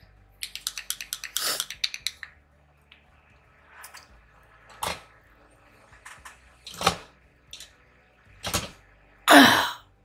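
Small hard objects clicking and knocking on a desktop as makeup things are handled: a quick run of rattling clicks early, then scattered single knocks, and a louder rasping noise near the end.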